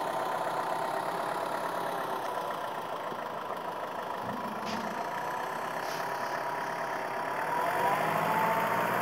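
Off-road vehicle engines running steadily at idle, with the revs rising about eight seconds in.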